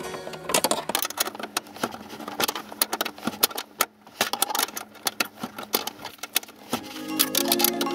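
Hand ratchet and socket clicking in quick irregular runs as a seat runner bolt is worked loose, with a short pause about four seconds in.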